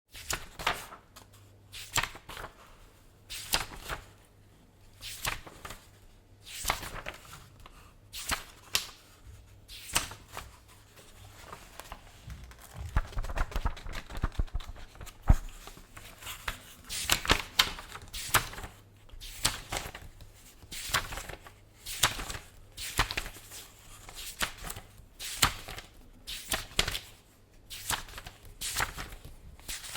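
Paper pages of a book being leafed through, each turn a short papery swish, about one every second or so. In the middle there is a stretch of busier rustling and handling with a few low knocks, and after it the pages turn more quickly.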